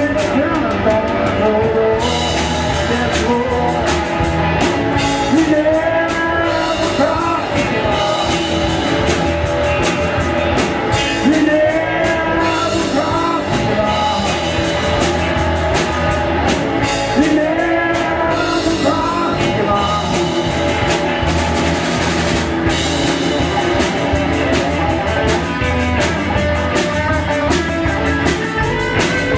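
Rock song with a sung lead vocal over a full band of guitar and drum kit, playing without a break.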